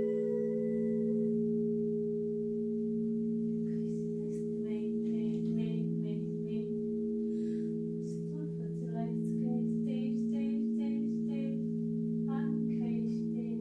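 Several crystal alchemy singing bowls ringing together in long sustained low tones that slowly waver and beat against one another. From about four seconds in, a quick run of short higher pitched notes plays over the steady drone.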